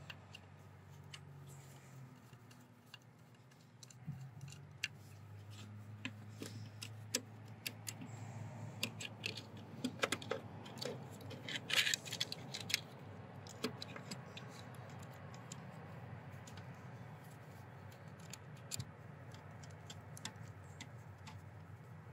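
Light metallic clicks, taps and small rattles of hands working the screw terminals and wire connectors on a sawmill's forward/reverse barrel switch, busiest around the middle, over a faint steady low hum.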